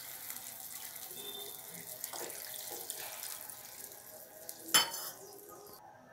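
Water with vegetables heating in a kadhai on a gas flame, a steady bubbling hiss with faint small ticks. A single sharp knock about five seconds in.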